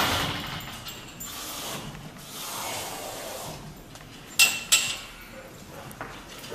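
Cattle at a metal feed rail in a barn: rustling and scraping as they feed on hay, with two sharp knocks about four and a half seconds in.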